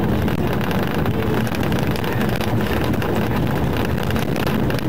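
Steady engine and road noise of a police patrol car driving at speed.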